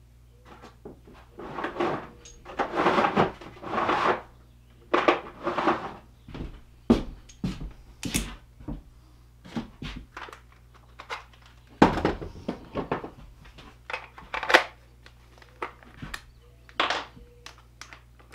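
Tools and metal parts clattering and knocking as someone rummages through shelves and bins, an irregular string of knocks, rattles and rustles.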